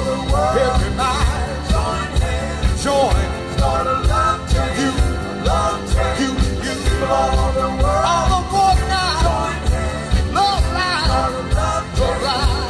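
Live band music with drums, bass guitar, electric guitar, keyboards and saxophone over a steady beat, with a melody line bending in pitch above it.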